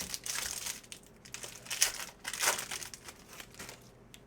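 Foil trading-card pack wrapper crinkling as it is handled, with a couple of louder crackles near the middle.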